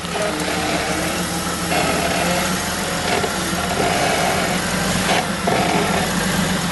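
Jeep YJ Wrangler's engine running at low revs as the truck crawls over rough ground, its note rising and falling slightly. A brief knock comes about five seconds in.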